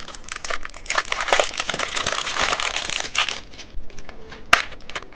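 Plastic candy wrapper crackling and crinkling as a phone-shaped candy package is opened, dense for about three seconds, then a few scattered clicks and one sharp click near the end.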